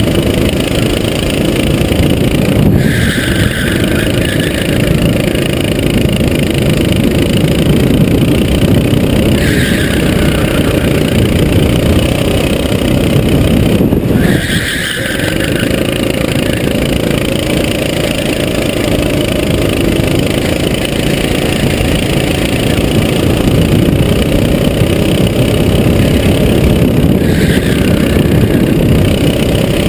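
Onboard sound of a Sodi SR4 racing kart's four-stroke engine running hard around a track, the engine note easing and picking up again four times as the kart slows for corners and accelerates out.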